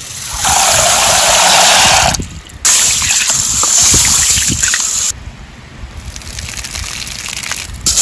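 Water splashing and sloshing in a stainless-steel bowl as small dried cowpeas are poured in and washed by hand. It is loud for most of the first five seconds, with a short break, then quieter stirring with small clicks, and loud splashing again at the very end.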